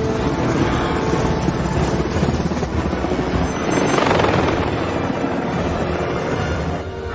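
Helicopter rotor and engine noise mixed with the running of military vehicles and cars: a continuous loud, dense din with no break.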